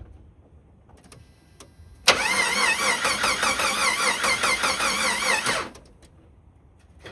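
1991 Jeep Wrangler's 4.0-litre straight-six cranked on the starter for about three and a half seconds without catching, its whine rising and falling in a quick, even rhythm. It does not fire even with starter fluid because there is no spark.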